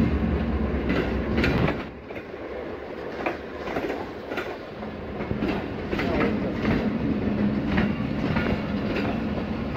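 Passenger coaches rolling slowly past on the adjacent track, wheels clicking over rail joints. A diesel locomotive's low rumble drops away about two seconds in, leaving the quieter rolling of the coaches.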